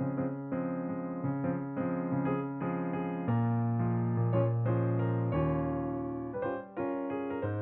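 Background piano music, notes and chords changing about every half second, with deep bass notes coming in about three seconds in.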